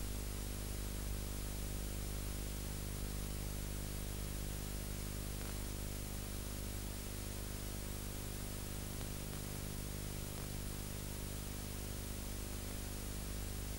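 Steady hiss with a low electrical hum under it, unchanging throughout: the noise floor of an old analog video tape transfer, with no programme sound.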